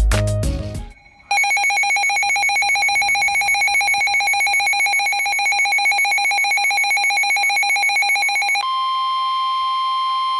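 The tail of intro music cuts off, and after a short pause the EAS attention signal sounds: a loud, steady, harsh two-tone alert beating rapidly. Near the end it switches to a single steady warning tone, the kind of alarm tone that leads into a National Weather Service severe thunderstorm warning.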